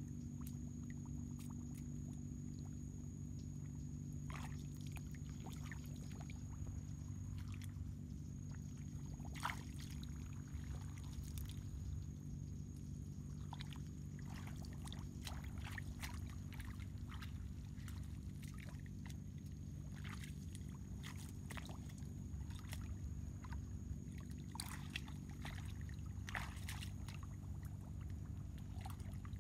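Shallow muddy water splashing and sloshing in scattered bursts as hands grope through it and bare feet wade, over a steady low hum and a thin, steady high-pitched tone.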